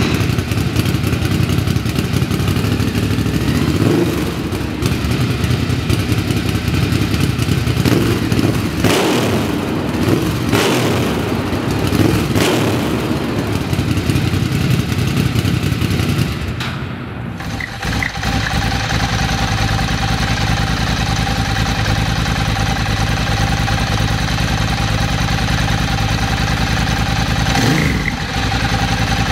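Ducati Sport Classic air-cooled L-twin engine run on the stand, its throttle blipped several times in the first half. After a cut, a second Sport Classic twin idles with a steady beat and is blipped once near the end.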